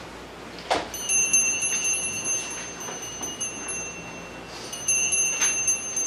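Altar bell rung twice, about a second in and again near the end, each time a bright, high ringing that lasts a second or so. This is the kind of ringing that marks the elevation at the consecration.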